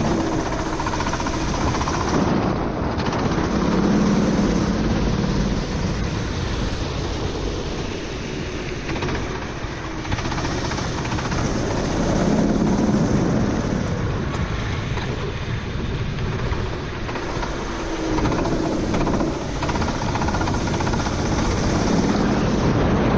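Four-stroke racing kart engine heard onboard, revving up and easing off in cycles every several seconds as the kart accelerates down straights and lifts for corners. Steady wind and water-spray noise from the wet track runs under it.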